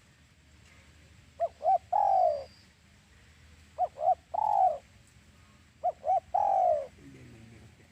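Spotted dove cooing: three repeated phrases about two seconds apart, each two short notes followed by a longer falling coo. A fainter, lower coo follows near the end.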